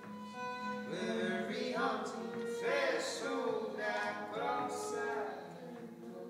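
Live acoustic music: a voice singing over bowed violin and guitar, getting quieter near the end.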